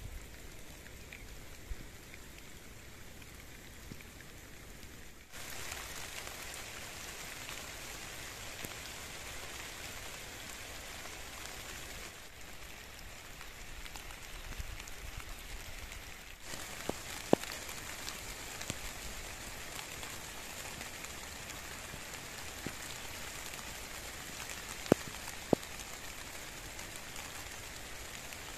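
Steady hiss of light rain falling on crop plants, with a few louder sharp drop ticks about two-thirds of the way through. The level steps up or down abruptly three times.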